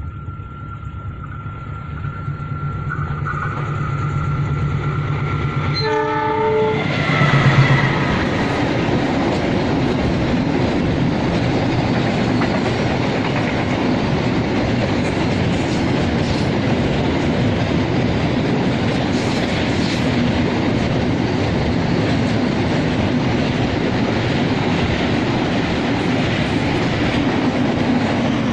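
Freight train approaching and growing louder, then sounding its horn in one short blast about six seconds in. After that the train passes, wagon wheels clattering steadily on the rails.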